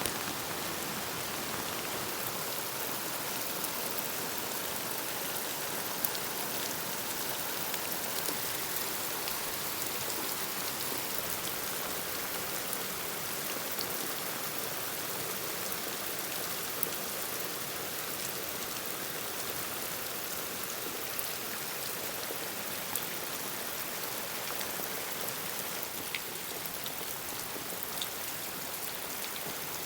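Steady rain falling, with scattered sharp drips and taps of drops through it.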